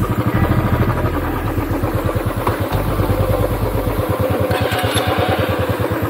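Royal Enfield Classic 350's single-cylinder engine running at low revs with an even, rapid beat as the bike rides slowly. Near the end a second motorcycle's engine comes close.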